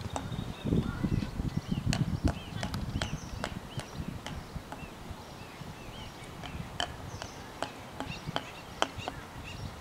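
Small birds chirping, with a scattering of sharp clicks, over a low uneven rumble.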